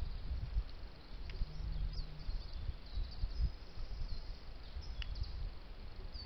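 Outdoor woodland ambience: an uneven low rumble with many faint, short, high-pitched chirps of small birds scattered throughout.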